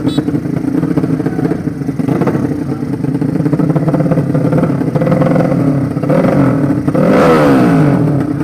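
Racing motorcycle engines with laid-down 200cc cylinders running and revving. About seven seconds in, one gets louder and its pitch then falls steeply away.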